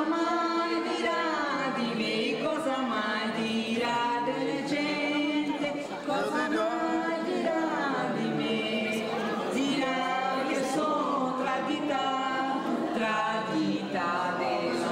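A woman singing into a handheld microphone with several other voices singing along, unaccompanied by instruments.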